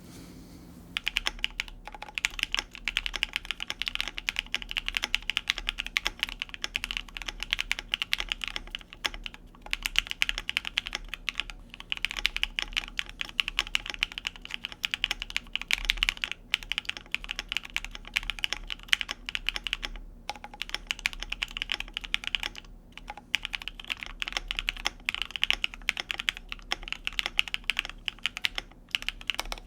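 Continuous fast typing on a Savage65 aluminium-case mechanical keyboard with lubed and filmed Cherry Blossom switches and PBT keycaps. It starts about a second in and has a few short pauses.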